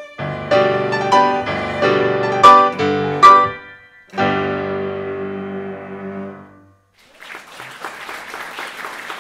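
Cello and piano playing the closing bars of a sonata: loud chords with two hard-struck accents, then a last chord held for about two and a half seconds that dies away. After a moment's silence, audience applause begins.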